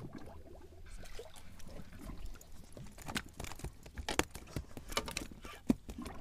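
Light splashing and dripping of water with a run of small clicks and taps, busier in the second half, and one sharper knock near the end.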